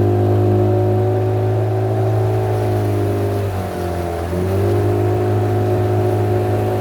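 Boat motor running at a steady speed, its pitch dropping briefly about midway and then climbing back.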